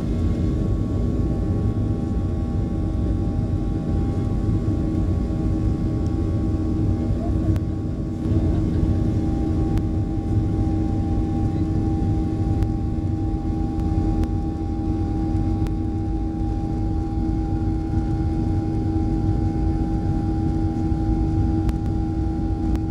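Boeing 737 jet engines heard from inside the passenger cabin as the airliner taxis: a steady low rumble with a few held whining tones above it.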